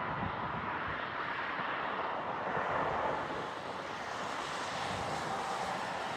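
Jet airliner engines, a steady rushing roar with a faint whine in it.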